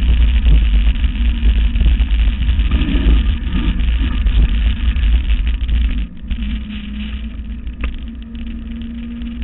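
Mountain bike rolling fast behind a dog team, its tyres rumbling over a gravel track with heavy wind on the handlebar microphone. About six seconds in the sound drops suddenly to a quieter, steadier hum of tyres on asphalt.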